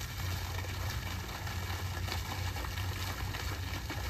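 A steady low mechanical hum with an even hiss above it.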